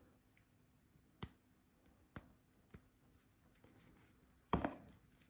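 Faint handling of a steel wristwatch and bracelet: three small sharp clicks spread over a couple of seconds, then a louder brief rustle-and-knock near the end.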